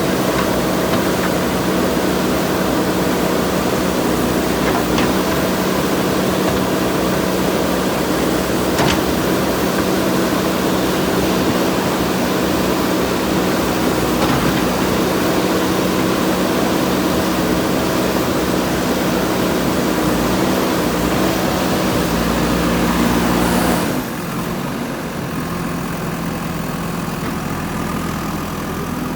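JCB backhoe loader's diesel engine running steadily, with a few faint clicks. About 24 seconds in it drops to a quieter, lower running.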